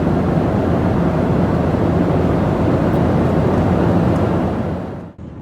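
Steady rushing cabin noise of a Boeing 737 airliner in flight, from its jet engines and the air rushing past the fuselage, fading out near the end.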